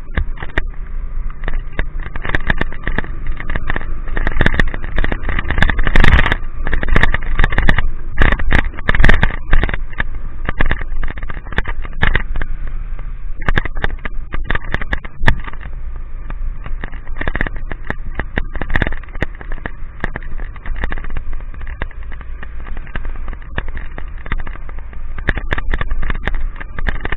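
A motorcycle ridden in the rain: steady engine and wind noise, with raindrops crackling against the camera all through.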